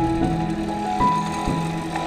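Background music: held melodic notes changing every second or so.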